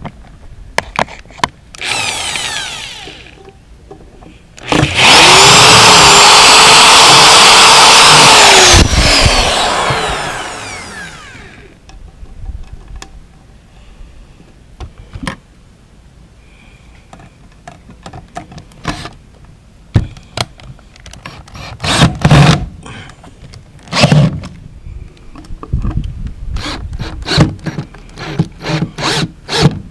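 A handheld power tool runs loud for about four seconds, its motor pitch rising as it starts, holding steady, then falling as it winds down over a few seconds. A shorter burst of the tool comes before it, and scattered knocks and taps follow.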